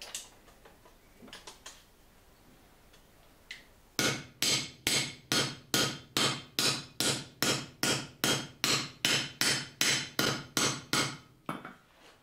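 Hand hammer striking a metal bar on a cast iron swage block, forming a replacement scroll piece: a steady run of sharp blows, about three a second, starting about four seconds in and stopping shortly before the end.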